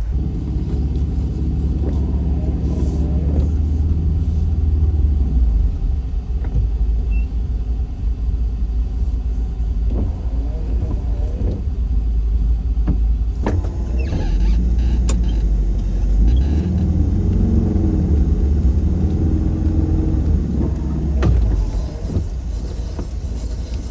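A 1984 Volkswagen Westfalia camper van's rear-mounted engine running under load with a low rumble that swells and eases as the van manoeuvres on a muddy, slippery dirt road, struggling for grip while trying to turn around. A few sharp knocks come near the middle.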